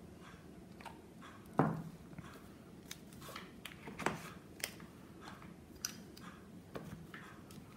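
Soft clicks and scrapes of nail-stamping tools being handled: a scraper card drawn across a metal stamping plate and a silicone stamper picked up and pressed onto it. The loudest click comes about one and a half seconds in.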